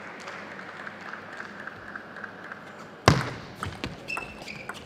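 Table tennis ball in play: after a few seconds of quiet hall hiss, a sharp knock about three seconds in as the point starts, then lighter clicks of the celluloid-type ball on bat and table, with a brief high squeak of shoes on the court floor.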